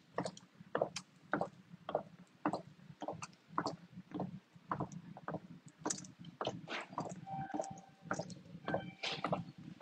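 Footsteps on a hard floor at a steady walking pace, about two a second, over the rustle and rubbing of clothing and a phone being carried. A faint steady tone sounds briefly from about seven seconds in.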